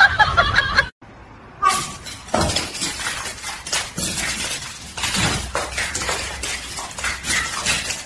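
Claws and paws clicking and skittering on a hard, polished stone floor in quick, irregular taps as a puppy and a cat scuffle.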